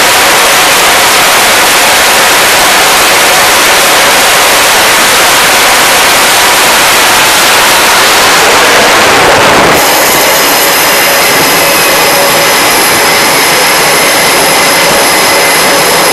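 Jet engine noise at full power as an F-35C is catapult-launched off a carrier deck: loud and steady. About ten seconds in it changes suddenly to an F/A-18 Super Hornet's jet engines running on the catapult, with steady high whines over the noise.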